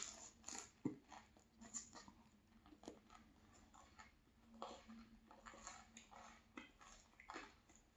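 Close-miked chewing of a big mouthful of pastry: faint, irregular wet mouth clicks and smacks.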